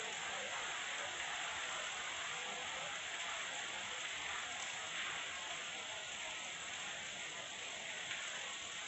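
Steady heavy rain falling, an even hiss with no thunder in it.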